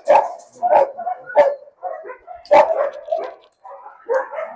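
Dogs barking: about half a dozen short barks, irregularly spaced.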